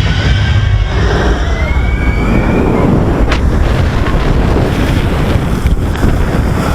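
Loud rush of wind over the microphone with rushing water as a flume-ride boat plunges down its big final drop toward the splashdown.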